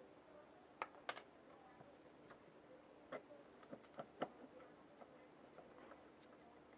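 About six light, sharp clicks and taps, scattered and irregular, from handling the opened air filter box of a motorcycle during a home service.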